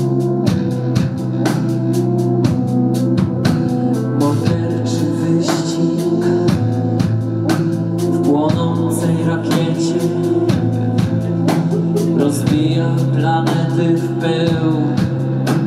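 Live band playing: a fast, steady drum beat over sustained bass and keyboard chords, with a wavering melody line entering about halfway through.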